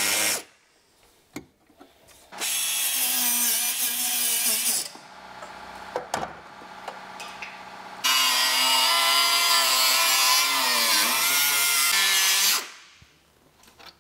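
Die grinder with a small cut-off wheel cutting sheet steel, a high whine and grind in separate runs. One cut ends about half a second in, another lasts about two and a half seconds, and a longer one begins about 8 s in. In that last run the pitch sags for a moment around 11 s as the wheel bites under load. A few light knocks fall in the pauses.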